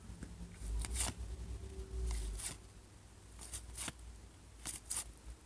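Baseball trading cards being slid one at a time off a hand-held stack, making a short papery swish with each card, about seven times at an uneven pace.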